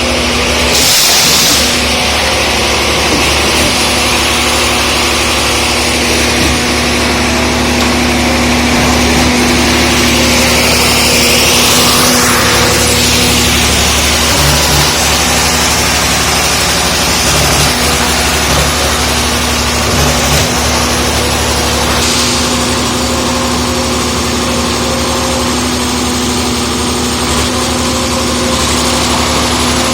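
Diesel engine of a concrete mixer pump running steadily, with a brief hiss about a second in.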